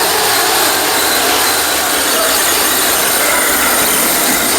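Small engine of a radio-controlled pulling truck running steadily at high speed.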